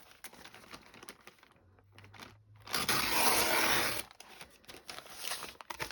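Paper bag crinkling and rustling as it is handled, with small scattered crackles and a loud rustle lasting about a second in the middle.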